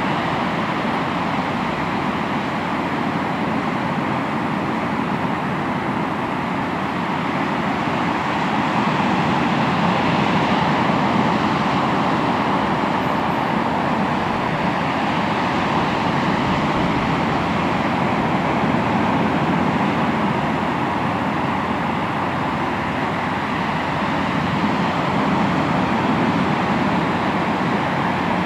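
Sea waves washing onto the shore in a continuous wash, swelling slightly louder for a few seconds about a third of the way in.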